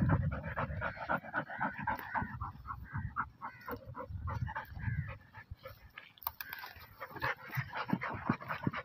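A dog panting rapidly, many short breaths a second, with its muzzle pushed into a burrow in dry soil as it sniffs out the hole.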